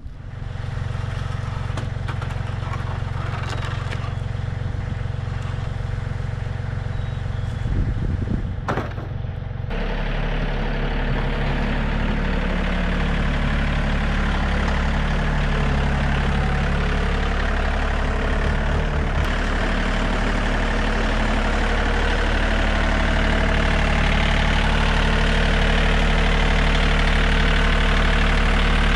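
A vehicle engine running steadily. About ten seconds in its note changes abruptly to a lower, fuller running sound with more hiss, which carries on and grows slightly louder.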